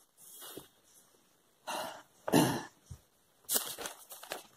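A short cough about two seconds in, with brief rustles of paper pages being handled before and after it.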